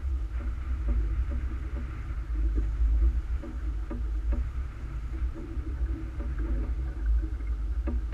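Steady low rumble aboard a small fishing boat on the water, with faint repeated ticks over it.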